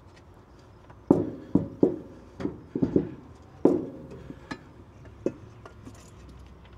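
Sharp metal knocks and clinks, about nine from a second in until past the middle, some with a short ring: metal parts being handled as the Detroit Series 60's oil cooler is lifted and fitted back onto the engine block.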